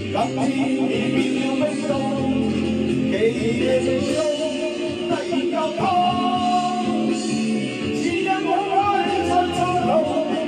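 A man singing along to a karaoke backing track into a handheld microphone, holding one long note partway through.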